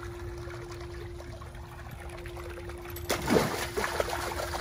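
Shallow pool water trickling and bubbling over a steady hum, then, about three seconds in, loud splashing as a Great Dane puppy runs through the shallow water.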